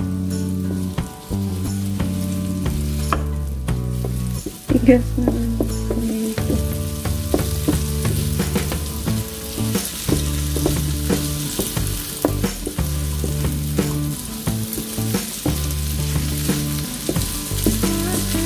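Tomato wedges sizzling in hot oil in a nonstick frying pan, stirred and turned with a wooden spatula that clicks and scrapes against the pan many times. The sizzle grows stronger after a few seconds. Low steady tones that shift in pitch every second or two sound underneath.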